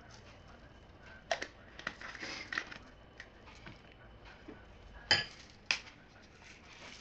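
Kitchen utensils and dishes being handled during cupcake icing: scattered light clicks and knocks, with a short rustling scrape about two seconds in. The loudest pair of clicks comes about five seconds in.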